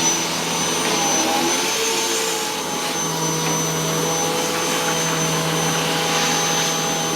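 Hoover WindTunnel T-Series bagless upright vacuum cleaner running steadily at full speed, a high steady whine over a low hum.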